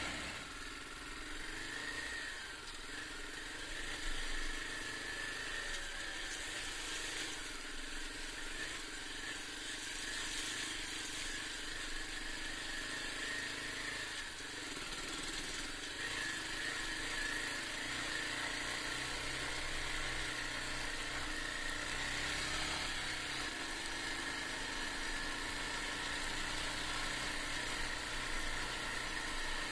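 Honda XR250's single-cylinder four-stroke engine running at a steady pace.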